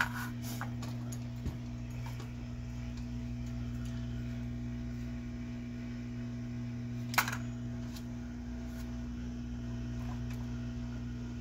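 Hot air rework gun running with a steady hum from its blower. There are a few light clicks near the start and one sharp click a little past halfway.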